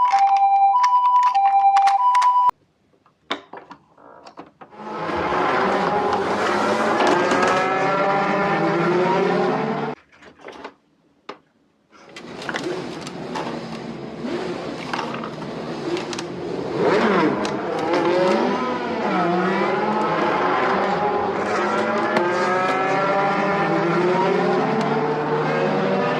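A two-tone hi-lo ambulance siren for about two and a half seconds, then, after a short pause, miniature toy cars running down a slope with a steady whirring, wavering in pitch, broken by a short gap about halfway through.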